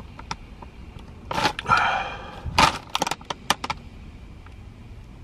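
Crisp packet crinkling and crackling while it is held up to the nose, with a long sniff of its smell about two seconds in. It goes quieter near the end.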